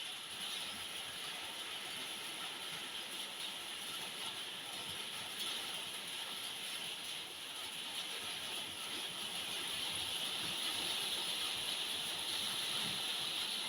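Heavy rain pouring down in a steady, dense hiss, growing a little louder in the second half.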